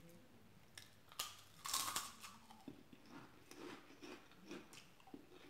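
A person biting into a crisp fried wheat chicharrón de harina: a sharp crunch just over a second in, a louder crunch half a second later, then close-up crunchy chewing about twice a second.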